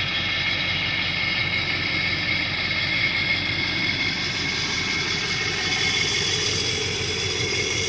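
Ford 7.3 L Power Stroke V8 turbo-diesel of a 2002 F-350 Super Duty idling steadily.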